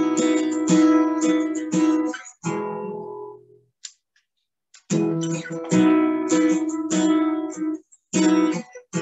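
Acoustic guitar strumming chords. The sound fades out about three seconds in, stops for about a second, then the strumming resumes.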